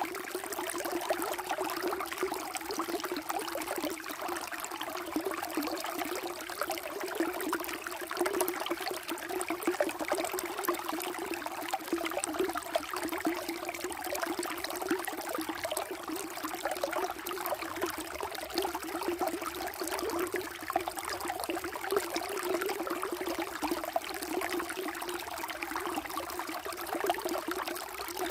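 Running water, flowing steadily without a break.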